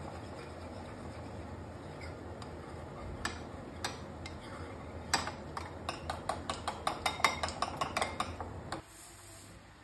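Sharp clicks: a couple of separate ones, then a quick run of about four or five a second, over a steady hum that cuts off near the end.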